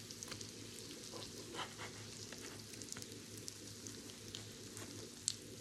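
Sausage patties and pancakes sizzling on a griddle: a steady fine crackle with scattered small pops, and one sharper tick near the end.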